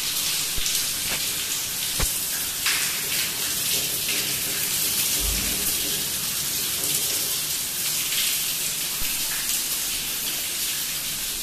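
Water gushing hard from a burst pipe overhead: a steady rush, with a few faint knocks in the first two seconds.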